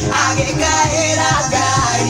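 A song playing, with a singing voice over instruments and a steady bass beat.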